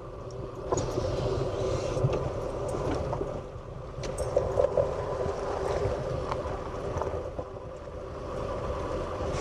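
Steady drone of a vehicle driving, a constant hum over a low rumble with a few faint clicks.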